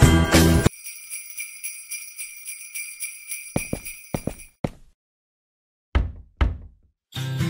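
Jingle bells shaken in a steady high jingle for about four seconds after music cuts off abruptly, followed by a handful of sharp short hits separated by silence, with music starting again near the end.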